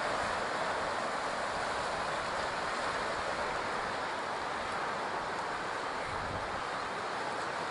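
Steady wash of ocean surf on a beach, an even hiss without distinct wave breaks.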